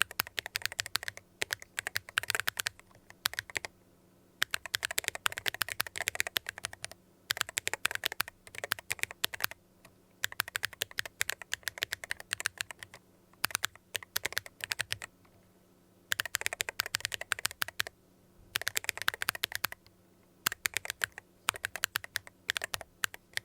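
Typing on an IYX MU68 Ultra mechanical keyboard with OKT Amethyst magnetic switches: fast runs of keystrokes in bursts of a second or two, broken by short pauses.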